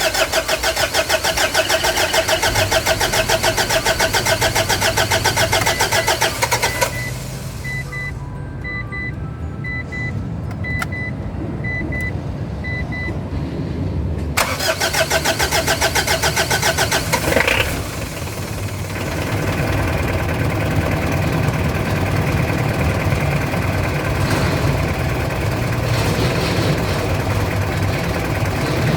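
Diesel car engine cranking on the starter for about seven seconds without catching. After a pause with a run of short beeps, it cranks again and fires about eighteen seconds in, then runs at idle. This long, hard start is the fault being diagnosed, with the glow plugs as the first suspect.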